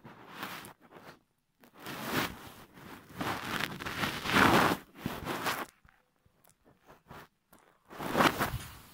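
Rustling and scraping handling noise as a phone's microphone rubs against a cat's fur and bedding: a long run of noisy scrapes in the middle, loudest about four and a half seconds in, and another short one near the end.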